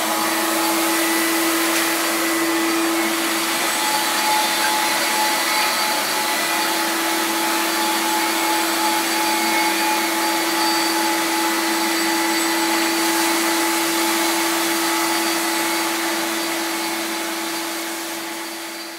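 Suction motor of a home-made screenprinting vacuum table running with a steady whine over a rush of air, holding the acetate and paper flat on the perforated bed. It fades away near the end.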